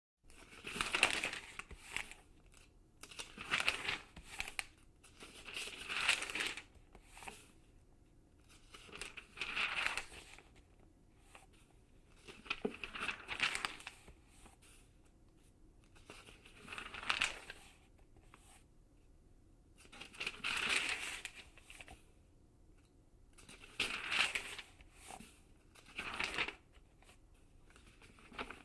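Glossy magazine pages being turned one at a time: about ten short papery rustles, one every few seconds, with quiet gaps between.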